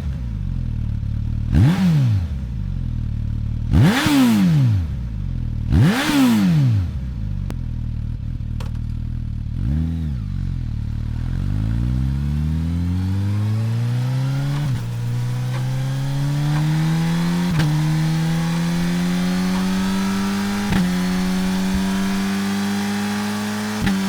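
Suzuki motorcycle engine revved in sharp blips about every two seconds. It then accelerates through the gears, its pitch climbing and dropping back at each of four upshifts.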